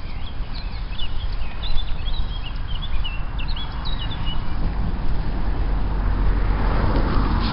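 Songbirds chirping in quick, high, short notes through the first half, over a steady low rumble. A rushing noise swells in the second half.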